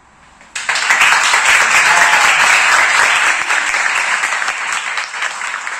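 Audience applause, starting suddenly about half a second in and easing slightly toward the end.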